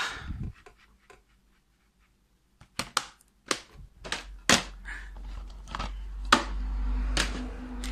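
Several sharp plastic clicks and clacks of DVD cases being handled on a desk, starting a little under three seconds in, with a low rumble of the camera being handled from about four seconds in.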